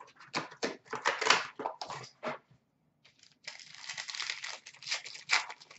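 An Upper Deck SPx hockey card pack's wrapper crinkling and tearing open, followed by cards rustling and sliding against each other as they are handled. The sound stops briefly about two and a half seconds in.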